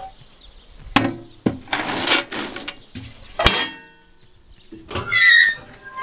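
Metal lids of a Traeger pellet grill being handled: a series of knocks and clanks, the loudest about three and a half seconds in with a short metallic ring. A brief wavering high call comes near the end.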